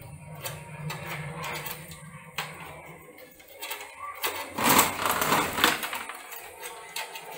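Scattered clicks and rattles of hands fitting components onto a motherboard inside an open desktop PC case, with a louder burst of noise from about four and a half to six seconds in.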